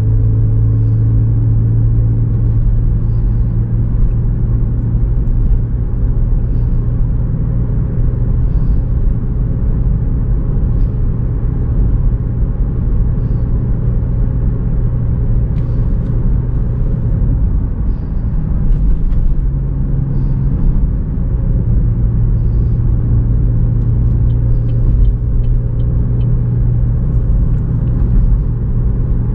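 Exhaust and engine drone of a 2017 GMC Terrain with a K&N cold air intake and Flowmaster Delta series exhaust, heard inside the cabin while driving: a steady low drone. Its pitch steps up briefly about two-thirds of the way through, then settles back.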